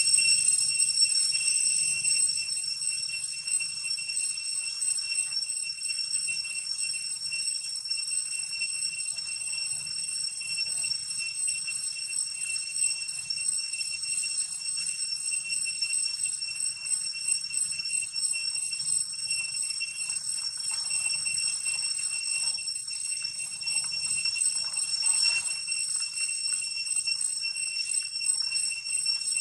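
Cicadas in the forest trees buzzing in one continuous, steady high-pitched drone.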